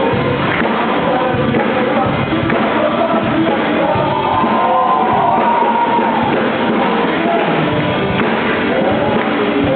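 Rock-style music with singing and drums, played steadily at full level, ending abruptly about ten seconds in.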